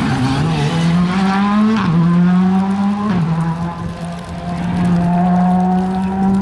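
Rally car accelerating away hard through the gears, the engine's pitch climbing and then dropping sharply at two upshifts, about two and three seconds in, before holding steady near the end.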